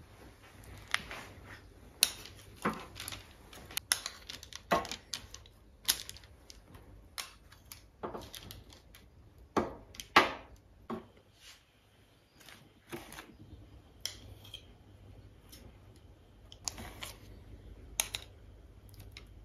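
Two spoons clinking and scraping against each other and tapping on a baking tray as soft cookie dough is scooped and dropped into rounds. The sharp clicks come irregularly, about one or two a second.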